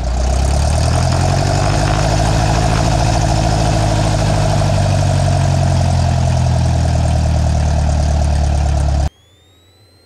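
Cessna 172's piston engine and propeller running steadily, loud and close. It cuts off abruptly about nine seconds in, leaving only a faint high whine that rises in pitch.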